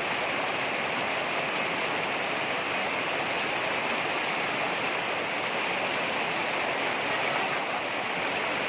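Water rushing over rocks in a stream, a steady, unbroken rush.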